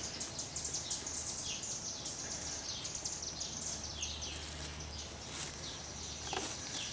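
Birds chirping: short, high, falling chirps repeating through, over a faint low hum. A few soft handling clicks near the end come from the drawstring of a mesh bee bag being untied.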